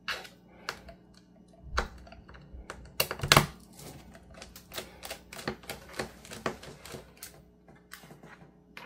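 Precision screwdriver turning out the Phillips screws of a laptop's bottom case, with irregular small clicks and taps of the bit and hands on the case. A louder knock comes near two seconds in, and a cluster of clicks about three seconds in.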